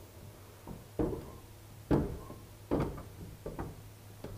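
About eight irregular knocks and clunks as a raised door is wedged open with a broken pitchfork, the loudest about two seconds in.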